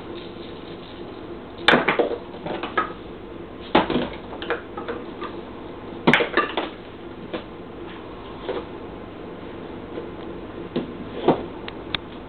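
A toddler knocking and clattering hard objects about in irregular knocks, with three louder clanks about 2, 4 and 6 seconds in.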